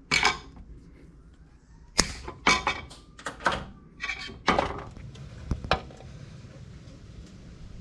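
Hand tools knocking and clicking against metal during a helicoil thread repair: a dozen or so sharp, irregular hits, bunched in the first six seconds.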